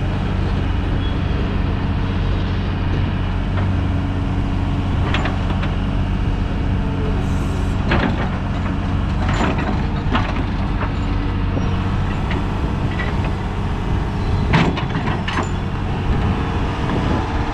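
Doosan DX225LCB hydraulic excavator's diesel engine running steadily, with several sharp clanks scattered through, the loudest about halfway and again near the end.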